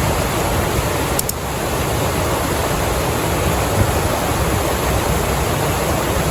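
Steady rush of a stream's flowing water, with one brief click about a second in.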